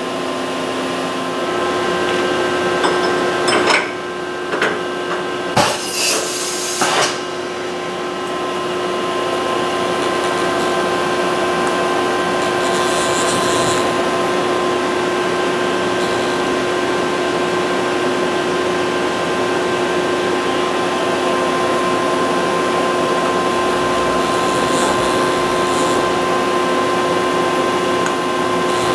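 Steady hum of a CNC vertical machining center, with several clunks between about three and seven seconds in and a short, loud hiss near six seconds as a tool holder is put into the spindle.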